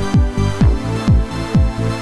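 Electronic dance background music with a steady kick drum, about two beats a second, over held synth chords.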